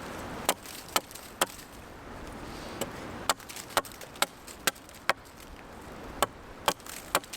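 Sharp wooden strikes, about two a second in runs of three to six with short pauses between the runs: a tool chopping or hammering wood.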